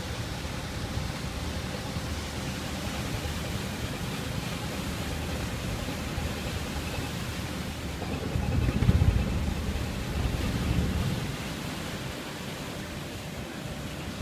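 Low rumble of a small coastal cargo ship's machinery and the water churning against its hull as it manoeuvres alongside a quay. It swells about eight seconds in and eases again a few seconds later.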